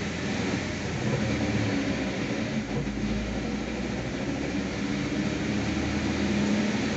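Wuling Hongguang PLUS drivetrain running in fifth gear at about 2000 rpm with the car raised, driving a rear wheel turning freely: a steady, really loud hum. The owner is sure this noise is not normal; the dealer found no fault.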